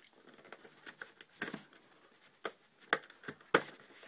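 Small cardboard product box being handled and worked open by hand: scattered taps, scrapes and knocks, the loudest about three and a half seconds in.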